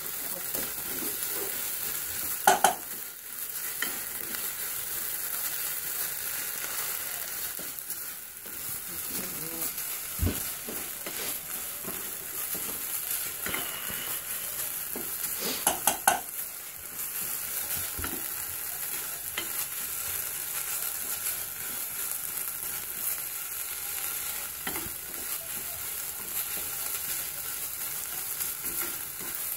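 Onions sizzling steadily as they are stir-fried in a frying pan until soft, with a few sharp clinks of the utensil against the pan, the loudest about two and a half seconds in and again around sixteen seconds.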